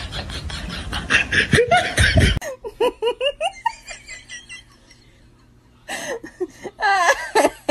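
A loud, noisy stretch, then a person laughing in short bursts, twice, with a quiet gap between.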